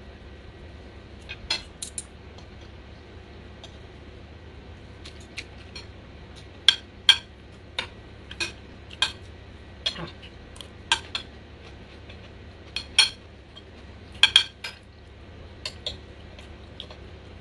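Metal spoon and fork clinking against a plate in irregular sharp taps while rice is scooped, a few of them louder than the rest.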